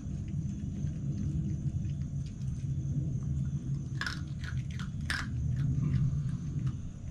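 Red fox chewing and crunching food, with a few sharper crunches about four and five seconds in, over a steady low rumble.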